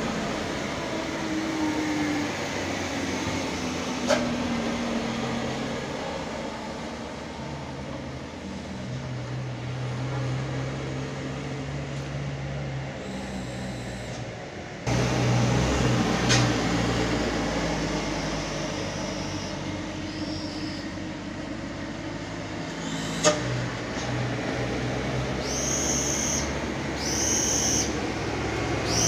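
Diesel cargo truck engines running as trucks pass on a hill road, one engine's pitch falling between about one and two seconds in as it slows for the bend. The sound turns abruptly louder about halfway through, and two short high-pitched tones sound near the end.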